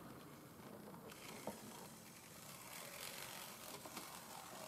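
Near silence: faint hiss of room tone with one light click about a second and a half in.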